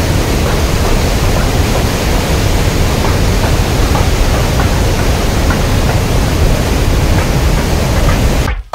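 Steady, loud rush of a river running over rocky rapids. It cuts off suddenly just before the end.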